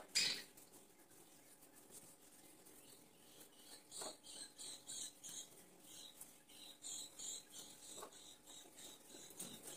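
Fingers working an oily egg-yolk and castor-oil hair mask into hair: faint, soft rustling of hand against wet hair. A short louder rustle comes right at the start, and from the middle on the rustles repeat two or three times a second.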